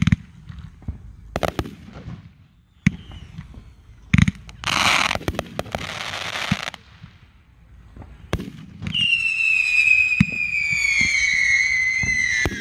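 Aerial fireworks: a series of sharp booms from shell launches and bursts, then a crackling burst lasting about two seconds near the middle. In the last few seconds a long whistle slides slowly down in pitch.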